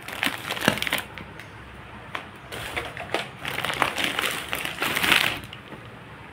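Plastic shopping bag rustling and crinkling as groceries are rummaged through and pulled out, in two spells: the first second, then from about two and a half to five and a half seconds in.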